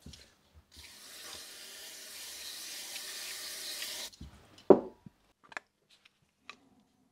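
Aerosol cleaner spraying in one steady hiss of about three seconds that cuts off suddenly, used to clean out a fuel pump body. It is followed by a single sharp knock, the loudest sound, and a few light clicks of metal parts being handled.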